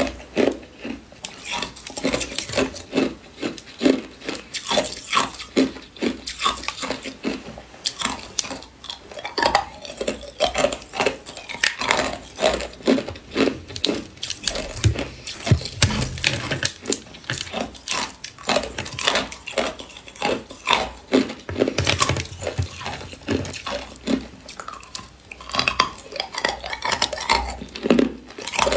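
Thin ice cubes being crunched between the teeth and clinking against each other in a glass bowl as they are picked out by hand: a fast, unbroken run of sharp cracks and clinks.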